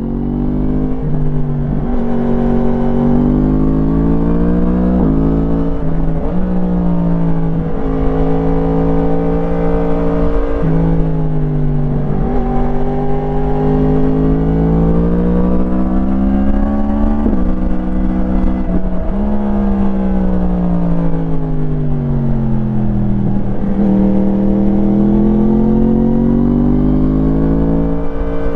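2017 Yamaha MT-10's crossplane inline-four with an Akrapovič slip-on exhaust, heard onboard while riding. It climbs in pitch under acceleration and falls back again and again, with several sudden drops along the way.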